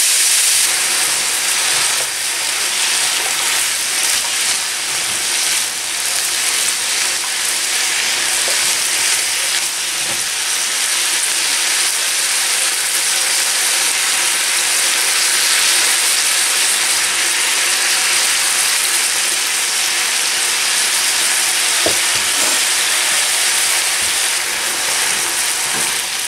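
Beef cubes, mushrooms and green peppers sizzling steadily in a hot nonstick frying pan, stirred with a silicone spatula, with a few light taps of the spatula against the pan.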